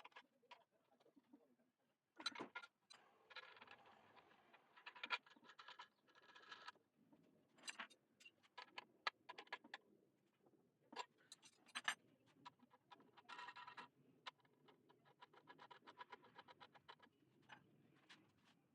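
Faint, scattered clicks and taps with stretches of light scraping, as of small objects being handled on a workbench.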